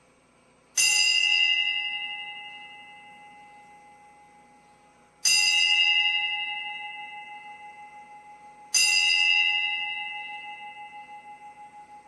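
A bell struck three times, about four seconds apart; each stroke rings out with a clear, steady tone and fades slowly, the last still ringing at the end. Rung to open the worship service.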